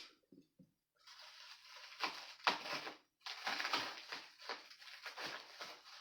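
Packaging being handled: a run of crinkling and rustling with sharper crackles, starting about a second in.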